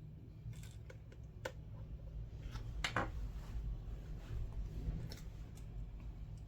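Small clicks and taps of repair tools and iPad parts being handled on a workbench, over a steady low hum, with the sharpest click a little under halfway through.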